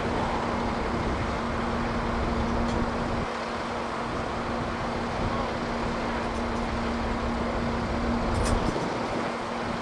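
An engine running steadily with a constant low hum, under uneven wind rumble on the microphone.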